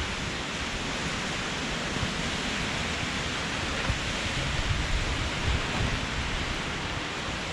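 Steady hiss of storm wind and rain through the trees, with wind buffeting the microphone as a low, uneven rumble.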